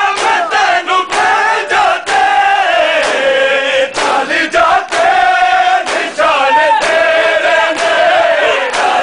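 A group of men chanting a Punjabi-language nauha (Muharram lament) together, loud and continuous. Sharp slaps of hands striking bare chests (matam) land about once a second under the chanting.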